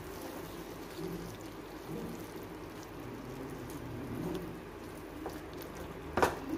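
Wooden spatula stirring thick prawn masala in a nonstick frying pan over low sizzling, with wet scraping and a few light clicks. A single sharp knock near the end is the loudest sound.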